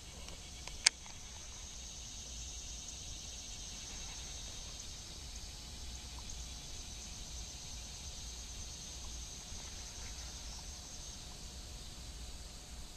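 Insects chirring steadily in a high, even band that fades out near the end, with one sharp click about a second in.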